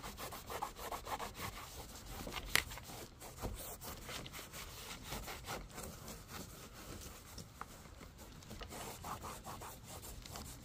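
Damp microfiber rag rubbing and wiping over a plastic dash panel: a quick, faint run of scrubbing strokes, with one sharper click about two and a half seconds in.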